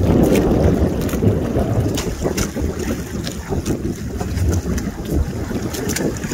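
Wind buffeting the microphone over choppy water, with the water lapping and scattered small splashes or ticks.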